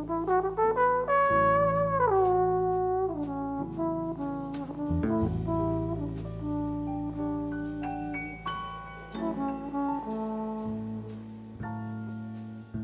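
Jazz trombone playing a melody, sliding between some notes, over a small band of electric bass, piano and drum kit with cymbal strokes.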